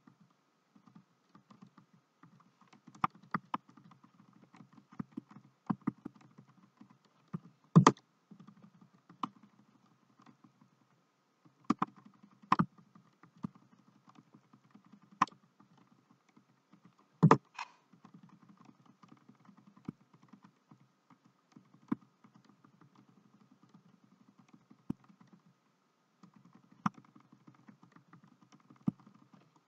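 Computer keyboard keys pressed in irregular, scattered clicks, a few of them much louder than the rest, over a faint steady background hum.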